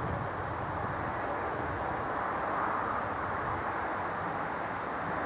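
Victorian Railways K-class steam locomotive K153 approaching from a distance: a steady rushing rumble that slowly grows louder.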